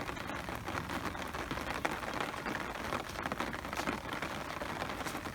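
Steady rain falling, a dense hiss with many close drops ticking irregularly.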